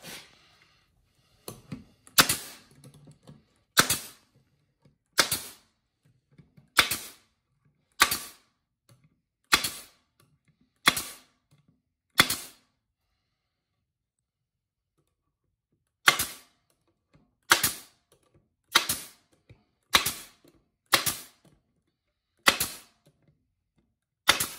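Corded electric staple gun firing staples through wire mesh into a pine board: about fifteen sharp snaps, one every second or so, with a pause of a few seconds midway.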